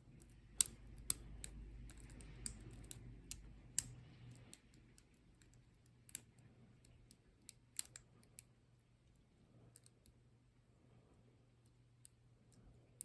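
Faint, irregular small clicks and ticks of a lock pick working the pin stacks of a padlock's small-format interchangeable (snowman) core under tension, denser in the first four seconds and sparser after. The core is partly turned, with what are believed to be spool pins in the lock.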